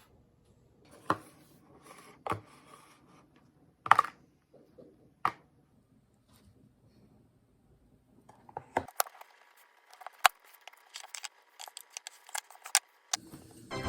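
A series of sharp clicks and light knocks: a few spaced ones, then a quick run of many clicks in the second half.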